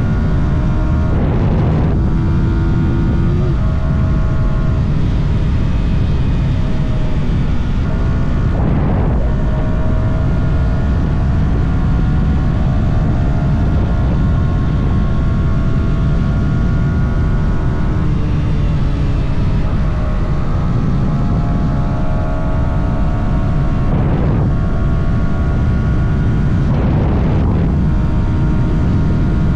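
Yamaha R125's stock single-cylinder 125 cc four-stroke engine running while riding, its note rising and falling several times as the throttle and gears change, over a loud, steady rush of noise.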